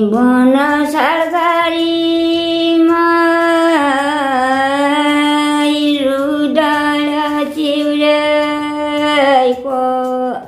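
An elderly woman singing a Thadi bhaka folk tune unaccompanied. It is one slow phrase of long held notes that steps down in pitch about four seconds in and stops near the end.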